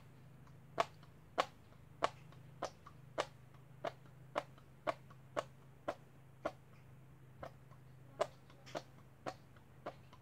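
Hand farts: two hands clasped palm to palm and squeezed together over and over, pushing out air in short popping fart noises. The pops come about two a second, some louder than others.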